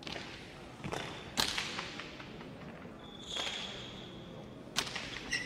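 Hard pelota ball cracking sharply off a bare hand and the frontón walls during a hand-pelota rally, several separate echoing smacks with the loudest about a second and a half in. A brief high squeak comes in the middle.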